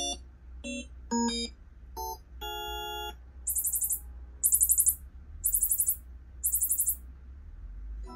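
Sony HT-A5000 soundbar playing its room-calibration test signals. First come a few short electronic beeps and a held chord, then four bursts of rapid high-pitched ticking about a second apart as it measures the room for sound field optimization.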